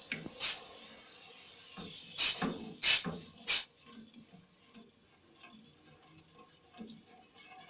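Kitchen utensils clinking and knocking against cookware, with four sharp strikes in the first few seconds and then quieter small taps and scrapes.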